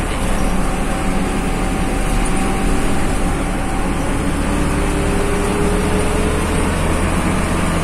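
Bus driving at road speed, heard from inside the cabin: a steady low engine and road drone. A faint whine rises slightly in pitch a little past the middle.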